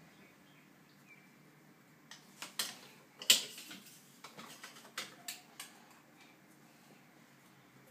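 A toddler's hands clicking and knocking a plugged-in small appliance and its plug against a countertop: a string of sharp clicks and taps from about two seconds in to nearly six, the loudest a little past three seconds.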